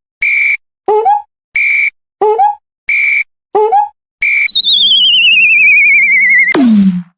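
Cartoon-style electronic sound effects in a quick alternating rhythm: a short, steady, high beep like an alarm tone, then a short blip that bends upward in pitch, about one pair every 1.3 seconds. Near the middle a warbling whistle slides steadily downward for about two seconds and ends in a short noisy swoop that drops low.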